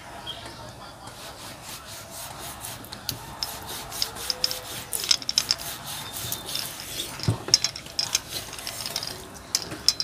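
Long kitchen knife sawing back and forth through a slab of raw pork on a wooden chopping board: soft rubbing strokes, with a run of short, irregular scraping clicks from about three seconds in.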